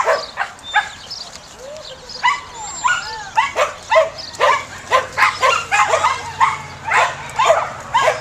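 Samoyed barking excitedly in a rapid string of short, high yips, two or three a second, with a brief lull about a second in.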